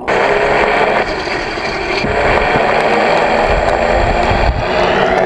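Engine of a radio-controlled Mitsubishi Zero scale model plane running loud and steady as its propeller spins, with a low wind rumble on the microphone about three and a half seconds in.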